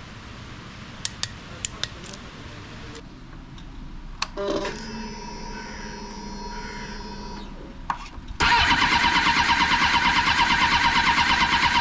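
A few sharp clicks, then a click and about three seconds of steady whirring. Then the 2005 Suzuki GSX-R600's inline-four engine turns over on the starter: a sudden, loud, evenly pulsing churn that carries on.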